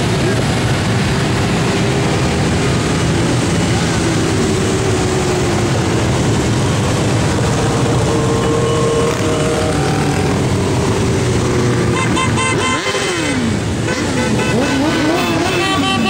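A long column of motorcycles riding past in a steady mass of engine noise, with engines revving up and down in the last few seconds. Repeated horn toots come near the end.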